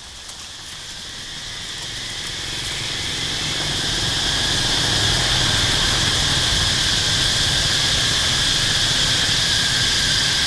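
Industrial noise intro to an album: a hissing noise drone with a steady high whine over a low rumble. It swells in level over the first four seconds, then holds steady.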